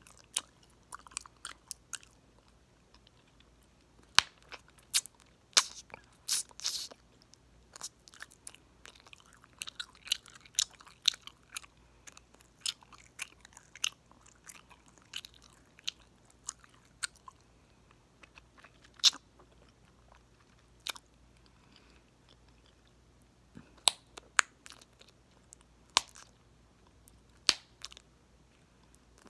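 Close-miked chewing of popping gum: wet mouth sounds with sharp, irregular pops and clicks, some much louder than others.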